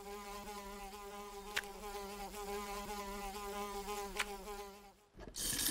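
Cartoon wasp buzzing, a steady, slightly wavering drone with two faint ticks along the way, cutting off about five seconds in. A short, louder burst of noise follows near the end.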